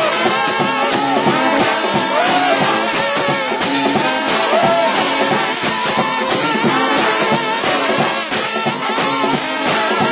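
Lively music with a steady drum beat and a brassy melody.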